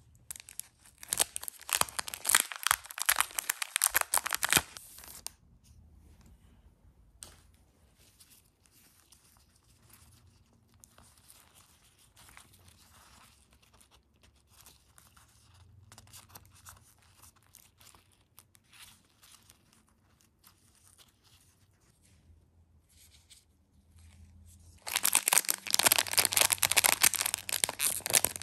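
Clear plastic packaging crinkling as it is handled by hands in plastic gloves: a loud spell of crackling about a second in that lasts some four seconds, faint rustling after, and another loud spell of crackling near the end.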